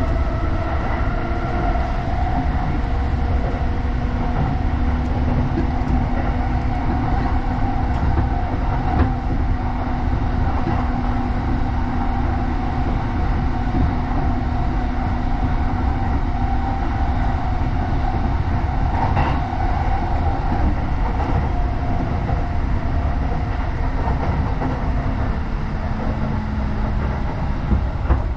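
Electric commuter train running at speed, heard from inside the passenger car: a steady rumble of wheels on rail with a faint motor hum and an occasional click from the rail joints.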